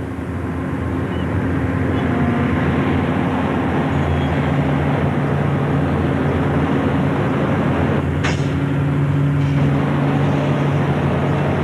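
Diesel engine of a crawler crane running steadily, a low droning hum that grows a little fuller about four seconds in, with a short high hiss about eight seconds in.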